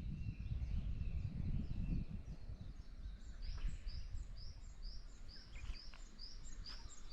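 A bird singing a rapid series of short, high, arched notes, about two and a half a second, starting about three seconds in. Underneath is a steady low rumble of outdoor noise.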